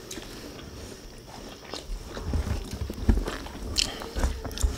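Eating sounds: chewing, and fingers tearing chicken and picking up rice from a metal tray, with scattered small clicks and soft knocks that grow busier in the second half.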